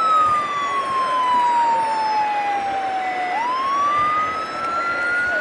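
A siren wailing: one tone slides slowly down, turns sharply about three seconds in, and climbs back up over about two seconds.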